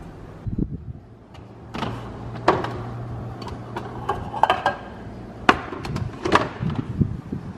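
Knocks and metallic clinks of bakeware being handled: a metal fluted tart tin lifted off a baking tray at the oven, with a low hum for a couple of seconds in the middle.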